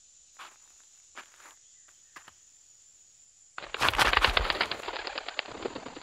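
Faint steady high hiss with a few soft snaps, then a sudden loud flurry of rapid flapping and rustling about three and a half seconds in as a large bird breaks across the forest track, dying away over the next two seconds.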